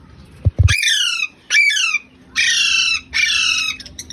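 Parrots squawking: about four loud, harsh calls in quick succession, each falling in pitch. Two low thumps come just before the first call.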